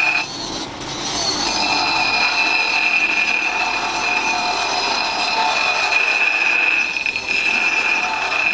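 A leaf-spring steel axe head ground against a spinning power grinding wheel: a steady, high-pitched grinding whine that dips for about a second near the start and again briefly about seven seconds in.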